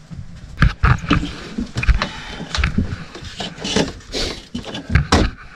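Irregular knocks, clicks and clatter as the old air-bed pump and its clear plastic hoses and wires are pulled loose from the bed platform.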